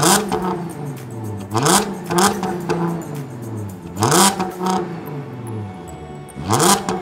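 2010 Audi S4's supercharged V6 revved through a custom 2.5-inch exhaust with an X-pipe and Dynomax VT mufflers. The car is standing still, and the engine is blipped about four times: each rev climbs quickly and then drops back slowly toward idle.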